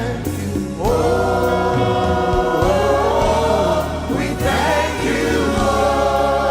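Gospel choir singing with band accompaniment: sustained sung notes that move to new pitches about a second in and again midway, over a steady bass line and percussion.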